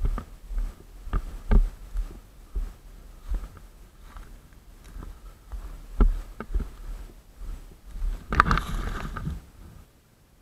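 Footsteps crunching through dry brush and undergrowth, irregular steps about every half second to a second. About eight seconds in, a louder rustle of branches and leaves lasting about a second, as the walker pushes into the bushes.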